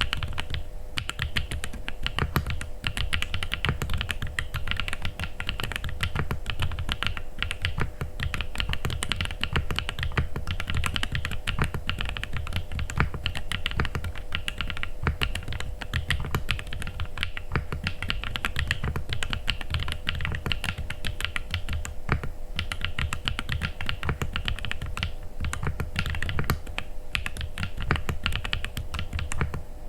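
Continuous fast typing on an AJAZZ AC067 mechanical keyboard with RK Misty Rain linear switches and Cherry-profile keycaps: a dense stream of key clacks with a deep thock under each stroke. A faint steady hum runs underneath.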